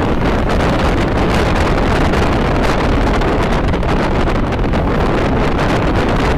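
Steady wind and road noise from a car travelling at highway speed, with wind buffeting the microphone.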